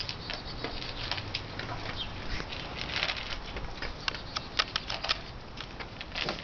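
German shepherd eating dog food from her bowl: an irregular run of crunches and clicks as she chews and her mouth and the food knock about.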